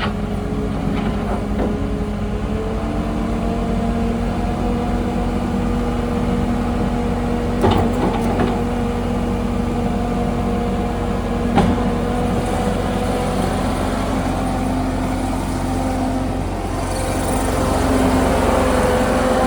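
A 2023 JCB 215T skid steer loader's diesel engine running steadily, with two sharp knocks about four seconds apart midway. Its engine speed picks up slightly near the end.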